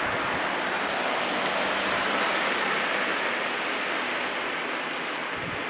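Steady rushing hiss of moving air and road noise, swelling about two seconds in and easing off toward the end.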